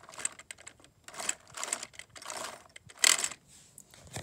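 LEGO plastic parts being handled: a string of irregular plastic clicks and rattles.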